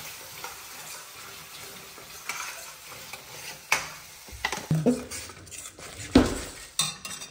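Ground tomato-onion gravy pouring into hot oil and spice paste in a stainless steel kadai, sizzling, while a metal spoon scrapes the gravy out of the grinder jar and stirs it. From about the middle on the spoon knocks and clinks against the jar and pan several times, loudest about six seconds in.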